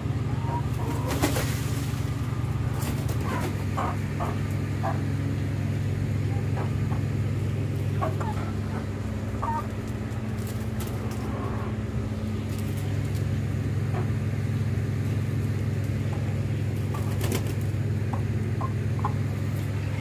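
A steady low motor hum runs throughout, with short, scattered clucks from Aseel chickens on top.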